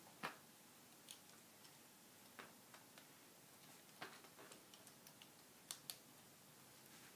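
LEGO Technic pieces handled and pressed together: scattered small plastic clicks and taps, a sharper pair near the end.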